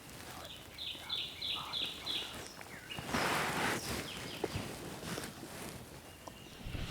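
A wild turkey hen yelping close by, a quick even series of about six short falling notes. A brief rustle follows about three seconds in.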